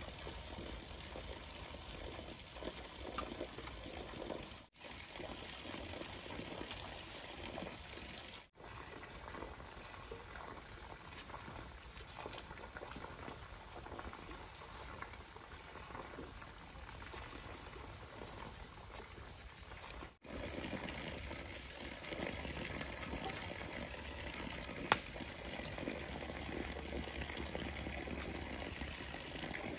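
Steady bubbling, running water, broken by three brief sudden gaps, with a single sharp click near the end.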